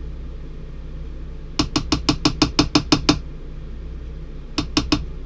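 A quick run of about ten sharp knocks, then three more near the end: a spatula and mixing bowl rapped together to knock the last of the cornbread batter out into a cast iron skillet. A steady low hum runs underneath.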